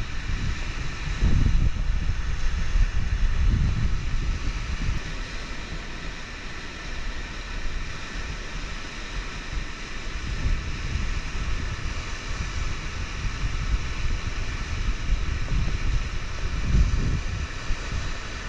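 Wind buffeting the microphone in uneven gusts over the steady rush of flowing river water.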